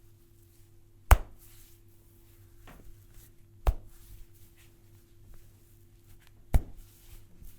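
A barber's hands making three sharp, loud cracks during a head massage, about two and a half seconds apart, with faint rubbing and hand movement between them.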